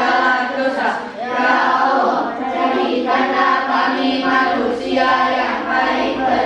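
A group of children reciting a closing prayer together in unison, in a steady sing-song chant.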